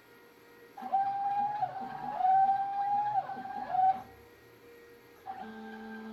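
Stepper motors of a small CNC writing machine whining in steady tones that jump to new pitches, with short glides up and down as the pen head moves. A run of moves lasts about three seconds from about a second in, and a shorter, quieter one comes near the end.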